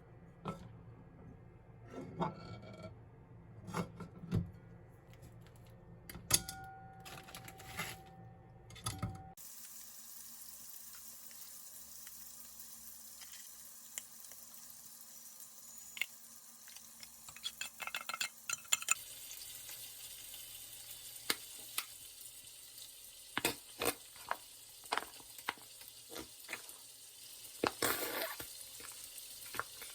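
Kitchen cooking sounds: utensils knocking and clinking against pots and dishes, with food sizzling in a pan. The sound changes abruptly twice, at about nine seconds and again near the middle.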